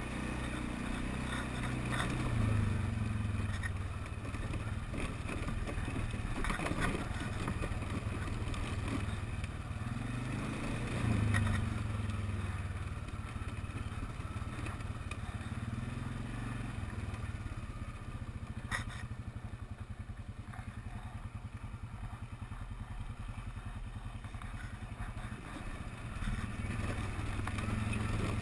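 TGB Blade 425 quad's engine running under way over rough ground, rising and easing with the throttle several times, with a few sharp knocks over the bumps.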